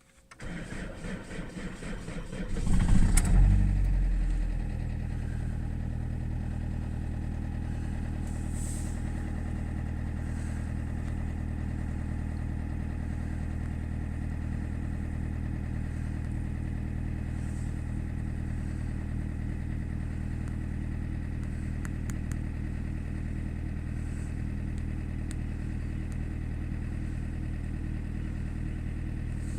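Saab 9-3 1.9 TiD four-cylinder turbodiesel cold-started in −7 °C frost: a really bad starter motor cranks it unevenly for about two and a half seconds before it catches with a brief rev. It then settles into a steady cold diesel idle.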